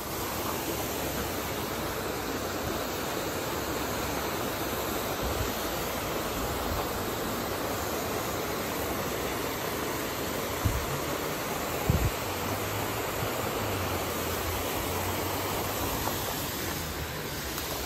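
Steady rush of water pouring over a dam spillway. Two brief low thumps come about two-thirds of the way through.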